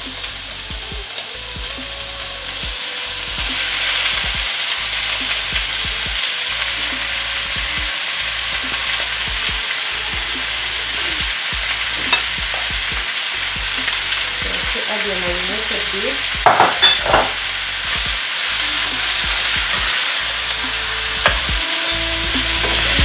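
Marinated beef and sliced red onions sizzling as they fry in oil in a frying pan; the sizzle grows louder about four seconds in as the meat goes in. A few sharp knocks about two-thirds of the way through.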